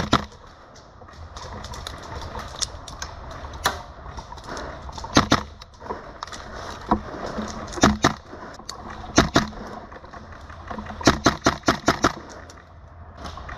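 Sharp cracks of airsoft gunfire, spaced unevenly with some in pairs and a quick run of several shots near the end, over a steady low rumble.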